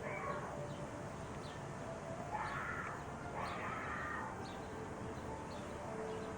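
Two harsh animal calls, about two and a half and three and a half seconds in, over a steady background hum.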